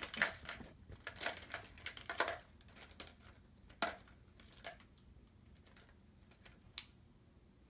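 Plastic markers clattering and clicking against each other as a hand rummages through a cup full of them, busy for the first couple of seconds, then a few single clicks.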